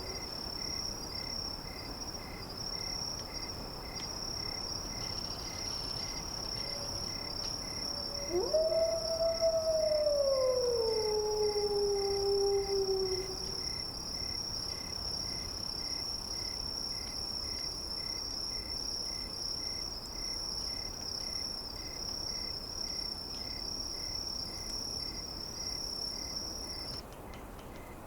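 Steady high drone of crickets or similar insects, with a slower pulsing chirp beneath it, cutting off suddenly near the end. About eight seconds in, a single long canine howl rises, holds and slides down over about five seconds.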